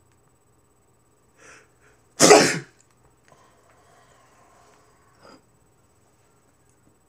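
A man sneezes once, loudly, about two seconds in, with a short faint sound about a second before it.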